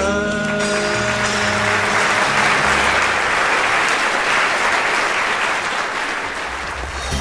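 Large audience applauding, the clapping swelling and then slowly fading, while the song's last held notes die away in the first two seconds.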